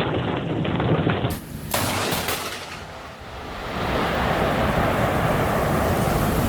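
Thunderstorm sound: loud thunder with sharp cracks in the first two seconds, fading briefly, then heavy rain hissing steadily from about four seconds in.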